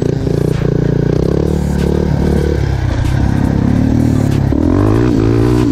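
Yamaha Raptor quad's engine running through a full aftermarket exhaust, its pitch rising and falling with the throttle, climbing in a rev near the end.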